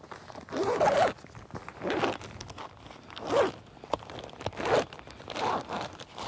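Tent door zipper being unzipped in five short pulls, roughly a second apart.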